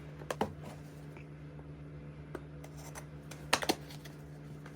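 Scattered sharp clicks and light rustling of merchandise packaging being handled and opened, with the loudest pair of clicks about three and a half seconds in, over a steady low hum.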